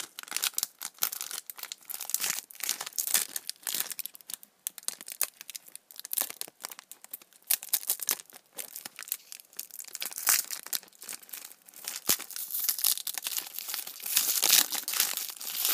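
Foil wrapper of a Pokémon card booster pack crinkling and tearing in irregular crackles as it is worked open by hand, a stiff pack that is hard to open. The crackling gets louder near the end.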